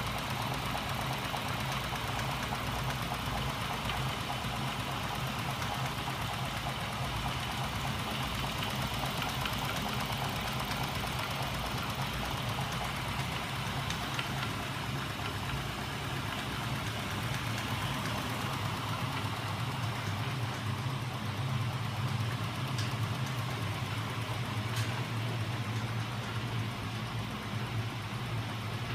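Home-built magnet reciprocating engine, its rocker arms and wheels driven by small 12 V electric motors, running steadily with a constant low mechanical hum.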